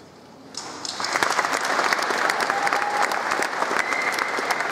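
Large audience applauding in a cathedral nave. The clapping starts about half a second in, quickly builds to a full round and then holds steady.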